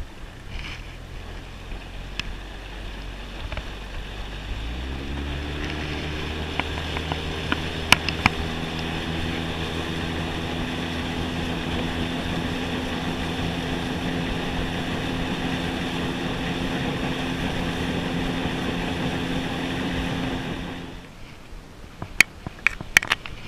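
Boat outboard motor running underway, its pitch rising as it is throttled up about five seconds in, then holding steady with the rush of wind and water over it. The motor sound stops abruptly near the end, followed by a few sharp clicks.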